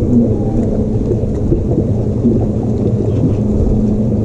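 Wind buffeting the microphone as a steady low rumble, with a faint hum running underneath.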